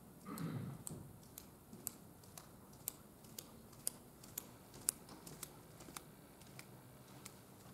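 Footsteps of high-heeled shoes, sharp clicks about two a second, growing fainter near the end. A short muffled sound comes just before the first steps.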